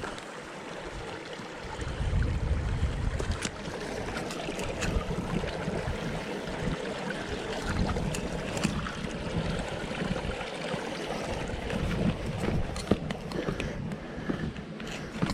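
Wind buffeting the microphone in uneven low gusts over a steady rushing hiss, with a few scattered crunches of footsteps on the trail.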